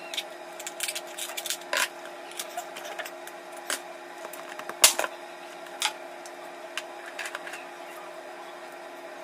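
Scattered clicks and cracks of raw crab and prawn shells being scrubbed and pulled apart by hand, with one sharp crack about five seconds in, over a steady hum.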